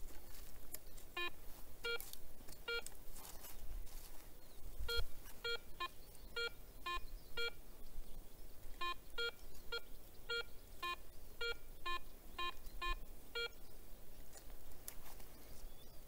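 Garrett ACE 250 metal detector beeping over a buried target: about twenty short beeps in two pitches, coming irregularly, sometimes several a second, as the coil passes over the spot.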